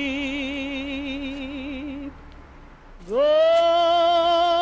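A single voice singing long held notes: the first has a wide vibrato and stops about two seconds in, then after a short pause a louder note scoops up into pitch and is held steadily.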